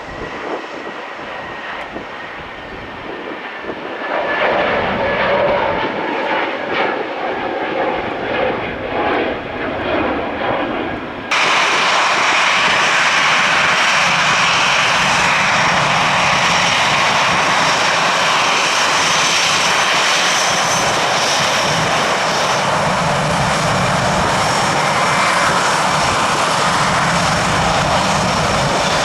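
Jet airliner engines: a passing aircraft's noise swells and wavers, then an abrupt cut about 11 seconds in switches to a louder, steady jet engine noise.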